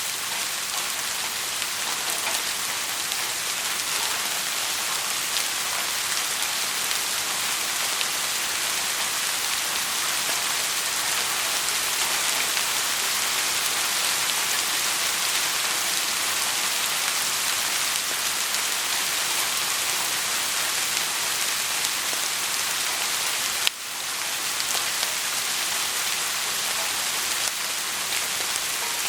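Steady rain falling, an even hiss with faint scattered drop ticks. About three-quarters of the way through there is a single click and the sound dips for a moment before carrying on.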